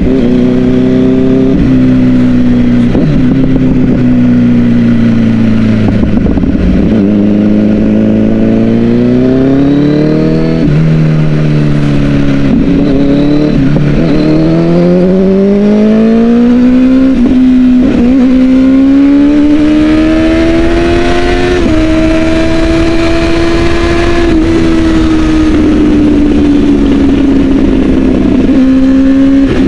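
Kawasaki ZX-10 1000 cc four-cylinder engine under hard acceleration. Its note climbs and drops back at several gear changes, then holds steady at high revs for the last third, with wind rush over the microphone.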